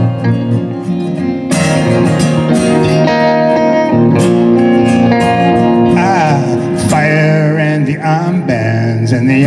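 Acoustic and electric guitars of a live band playing an instrumental break between verses. A chord lands about a second and a half in, and in the second half a lead line of bent, wavering notes plays over the strumming.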